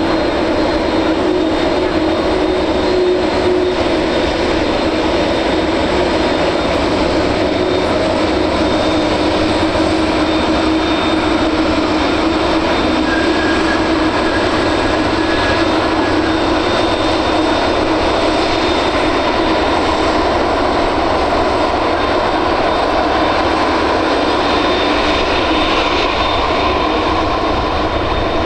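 Airbus Beluga A300-600ST's twin turbofan engines running steadily on the ground, a continuous jet rumble with a steady whine.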